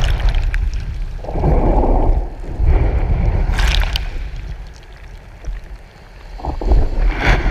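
Whitewater rushing and splashing around a surfboard-mounted action camera, with a heavy low rumble of wind and water on the microphone; sharper splashes come about halfway through and again near the end.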